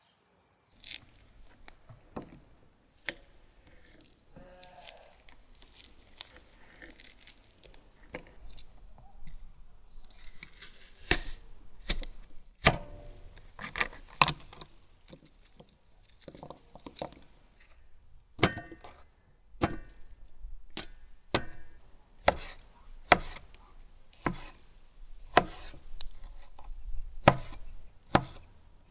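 Knife chopping food on a cutting board: irregular sharp strokes, sparse and fainter at first, then coming more often and louder from about ten seconds in.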